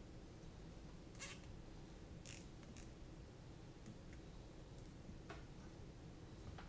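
Faint, short scratchy rasps and clicks, about half a dozen spread over several seconds, of small plastic parts being handled: zip ties and wires being worked onto a small drone frame, over a quiet room background.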